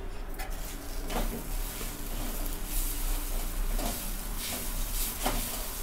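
A spatula stirring and scraping cooked poha around a steel kadai, with soft irregular scrapes and light knocks over a steady hiss.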